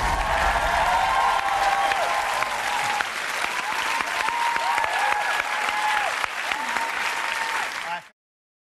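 Studio audience applauding and cheering, with high whoops gliding over the clapping; it cuts off suddenly about eight seconds in.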